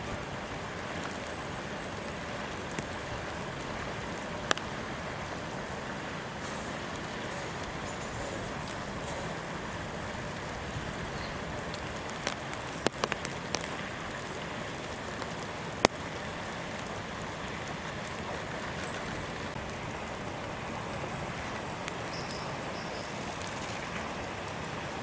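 Steady outdoor background hiss, with a few sharp clicks and snaps scattered through it, the loudest about two-thirds of the way in.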